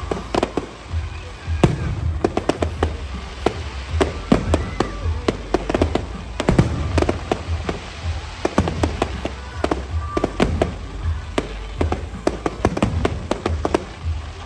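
Aerial fireworks bursting: a dense, irregular run of sharp bangs and crackles that goes on without a break.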